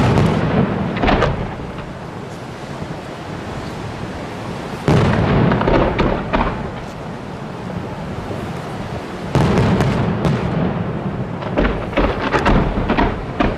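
Aerial firework shells bursting, each burst trailing off in echo: loud bursts at the start and about a second in, a heavier stretch of bursts about five seconds in, another about nine seconds in, then a quick run of sharp cracks near the end.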